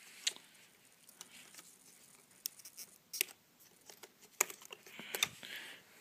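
A few sharp small clicks with faint handling noise as 1 GB DDR2 SO-DIMM memory sticks are unlatched from a ThinkPad T61's memory slots and pulled out.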